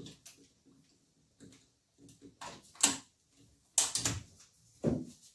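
Scattered clicks and knocks of a cordless rotary hammer and its drill bit being handled, as a bit is fitted into the chuck, with no motor running. The sharpest knock comes about three seconds in and a short clatter about four seconds in.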